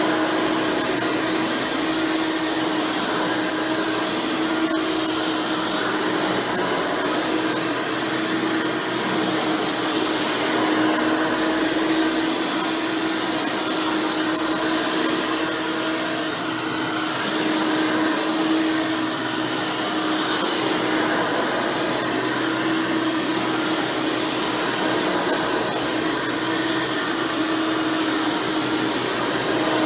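Hoover Elite Supreme upright vacuum cleaner running steadily, its motor fitted with a 20-blade fan: an even rush of air with a constant hum, no change in pitch or breaks.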